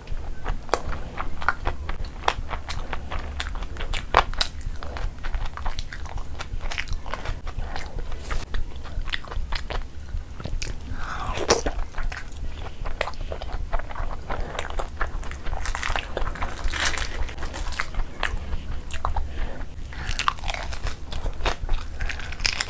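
Close-miked eating by hand: wet chewing, lip smacks and many sharp mouth clicks, with crunchy bites, as spicy saucy food is eaten with the fingers.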